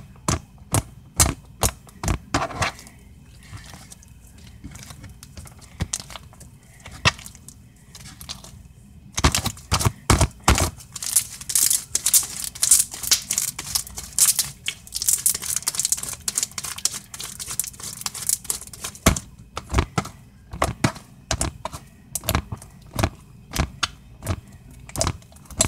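Sticky homemade glue slime being kneaded and stretched by hand, giving sharp clicking and crackling pops. The pops come singly for the first several seconds, turn into a dense crackle from about a third of the way in to about three quarters, then thin out again.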